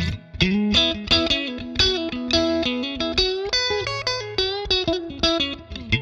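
Clean electric guitar played through a Catalinbread NiCompressor FET compressor pedal into a Fender Deluxe Reissue amp, with the compression turned up. It plays a lick of picked single notes and double-stops with slides and bends, and the notes sustain evenly after each pick attack.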